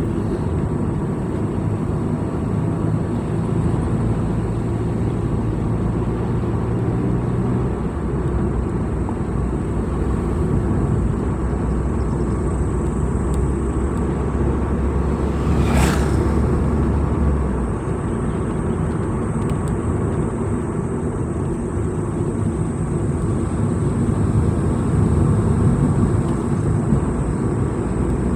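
A vehicle driving along a road: steady engine and road rumble. The engine note drops after about 7 seconds and changes again at about 17 seconds, and there is one sharp click a little past halfway.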